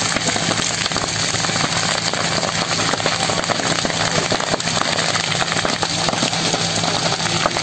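Dense, continuous crackling and popping of a bush fire burning through dry vegetation, over a steady low engine drone.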